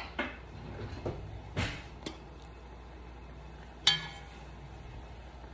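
A metal spoon knocking and clinking against a large enamelled pot of boiling broth: a few light knocks in the first two seconds, then one sharp, ringing clink about four seconds in.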